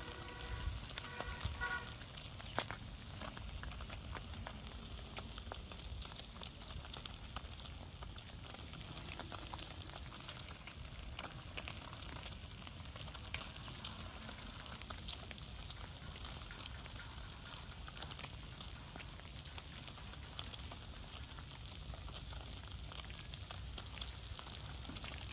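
Food sizzling over a wood fire: a steady hiss with scattered small crackles and pops.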